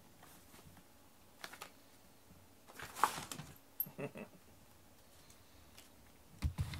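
Two cats tussling on soft bedding: scattered rustles and light scratching of claws on fabric. There is a louder rustle about three seconds in and a few heavy thumps near the end as one cat moves off.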